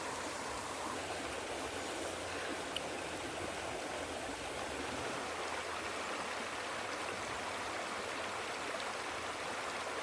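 River water running steadily, an even wash of flowing stream noise.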